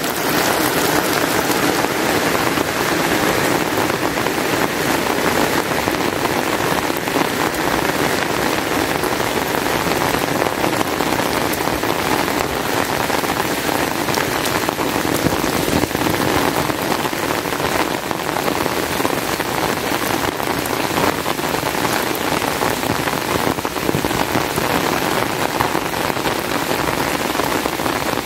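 Heavy rain falling steadily, a dense, even hiss of countless drops with no let-up.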